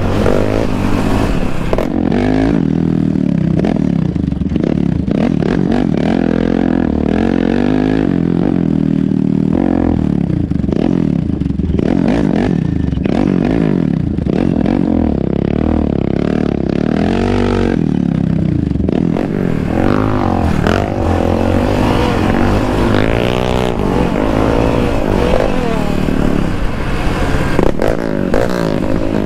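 Yamaha Raptor 700 sport quad's single-cylinder engine revving, its pitch rising and falling over and over with the throttle as it rides a dirt trail.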